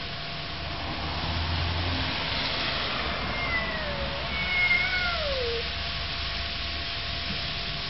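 Cats yowling at each other in a fight standoff: long, drawn-out wails that slide down in pitch, two of them in the second half, the second one the loudest. This is the threatening caterwaul of a territorial face-off.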